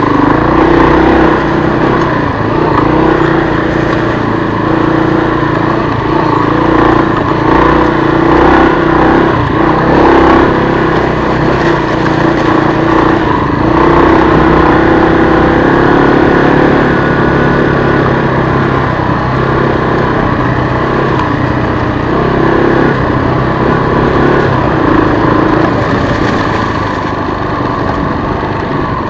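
A 1996 Kawasaki KLR250's single-cylinder four-stroke engine running under way on a dirt trail, its pitch rising and falling with the throttle.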